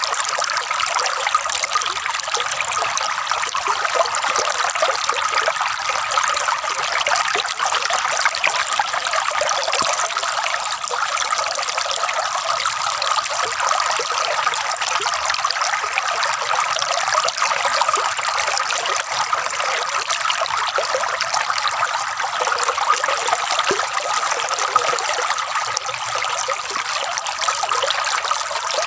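Flowing water gurgling and trickling steadily, with no breaks.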